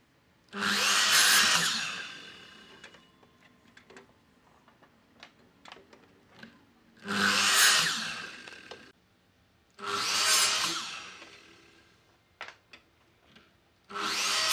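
Makita miter saw cutting through a thin wooden strip four times. Each cut is a short, loud burst that dies away as the blade winds down, with light clicks of wood being handled between cuts; the last cut starts near the end.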